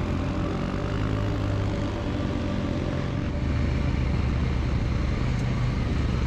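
Adventure motorcycle engine running steadily while riding, getting louder a little past halfway through.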